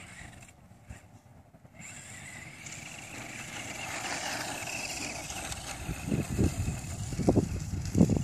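A radio-controlled 4WD truck's motor whines as it drives on loose sand, getting louder from about two seconds in. From about six seconds in, irregular low thumps and rumbles come in and become the loudest sound.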